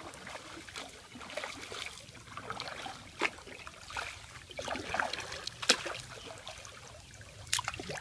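Double-bladed kayak paddle strokes in river water: blades dipping and pulling, with water trickling and dripping off them in irregular splashes. A few sharper clicks stand out, the loudest about three and a half and six seconds in.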